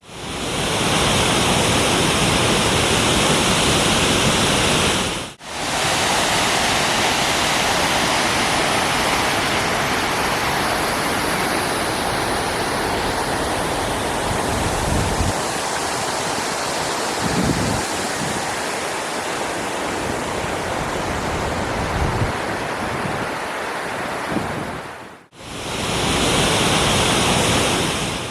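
Waterfall rushing: a loud, steady roar of falling water. It breaks off briefly twice, about five seconds in and near the end, and starts again each time.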